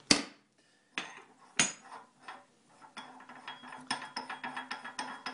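Metal parts of a pasta extruder being handled as its threaded front die ring is unscrewed and released: a sharp clack, a couple of knocks, then from about three seconds in a run of quick, irregular metallic clicks over a faint steady hum.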